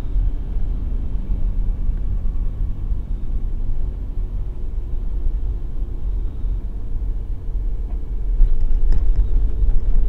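Car driving slowly along a dirt road: a steady low rumble of engine and tyres. It gets louder about eight seconds in, with a few light knocks near the end.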